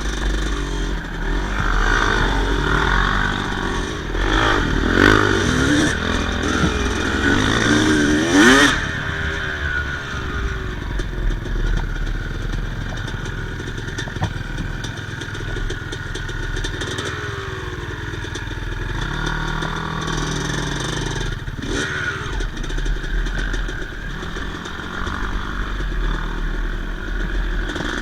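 Yamaha YZ250 two-stroke dirt bike engine running and revving up and down, the revs loudest about eight seconds in. It then runs more steadily, with another rise and fall of revs about twenty seconds in.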